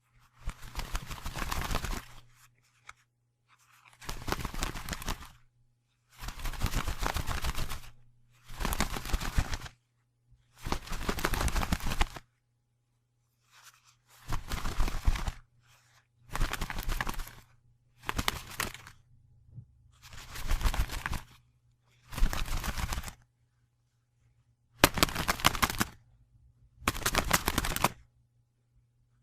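Wing-flapping sound effect: about a dozen separate bursts of rapid fluttering flaps, each lasting one to two seconds, with short silences between them.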